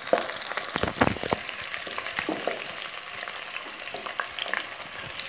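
Chopped onions sizzling and crackling in hot oil in a steel pot as they are browned, stirred with a wooden spoon that scrapes and knocks against the pot, most sharply about a second in.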